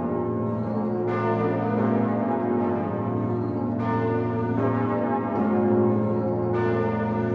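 Swinging bronze bells of Notre-Dame de Paris cathedral ringing together in plenum, heard from inside the belfry: a dense, overlapping ringing with a fresh heavy clapper strike about every two and a half to three seconds.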